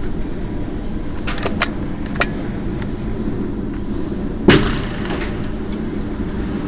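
A few light clicks, then a single sharp shot from a Jaeger PCP air rifle about four and a half seconds in, over a steady low hum.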